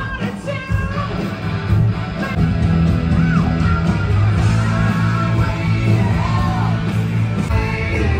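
Rock band playing loud, with a high sung line gliding up and down over a heavy, steady bass.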